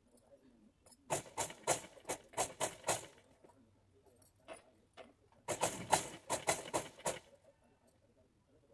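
Sewing machine stitching in two short runs, each a quick, even clatter of stitches lasting about two seconds: one about a second in, the other just past the middle. It is sewing a narrow line of stitching close to a neckline edge.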